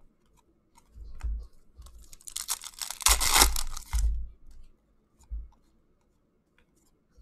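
A foil hockey-card pack wrapper being torn open and crinkled: a dense crackling rustle that builds about two seconds in, is loudest around three seconds in and stops at about four. A few soft bumps of cards being handled come before and after it.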